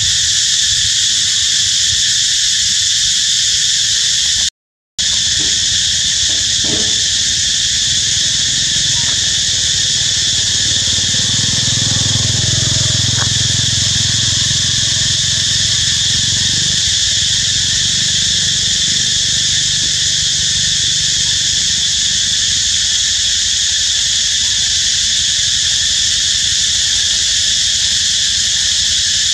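Steady, loud insect chorus, a high buzzing drone with no pauses. The sound cuts out for about half a second roughly five seconds in.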